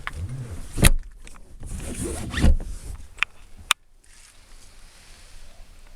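Fold-down middle section of a car's rear seat being handled: rasping and scraping of upholstery and plastic, with a few sharp clicks and knocks. The last knock comes nearly four seconds in, and the handling stops there.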